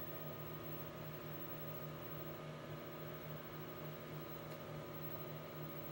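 Steady room hum: a low electrical buzz with a constant hiss, and a faint tick about four and a half seconds in.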